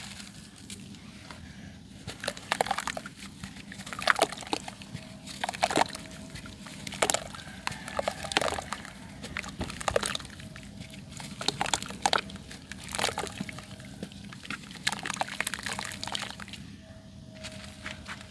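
Yellow sand crumbled and squeezed by hand, a crackling, crumbly sound that comes in repeated bursts about every one and a half seconds.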